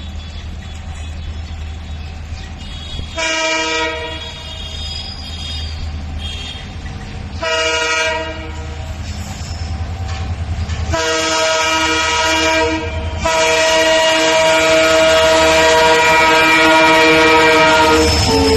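Diesel locomotive horn sounding two short blasts, then a long one that breaks briefly and carries on for about seven more seconds, over the steady low rumble of the diesel engine growing louder as the train approaches.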